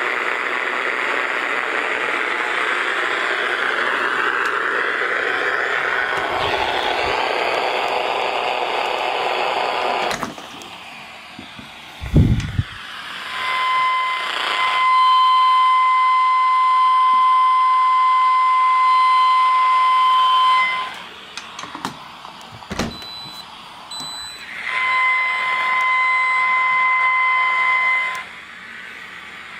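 Small AM transistor radio's speaker hissing with static, then, held up to a dishwasher, a steady high-pitched whine with overtones that cuts in, drops out and comes back as the radio moves: electrical interference radiated by the dishwasher, the source of the noise on the ham rig. A single handling knock comes about twelve seconds in.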